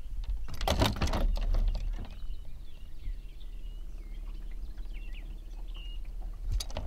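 A brief noisy rustle about a second in, then faint bird chirps over a low steady hum, with a sharp click near the end.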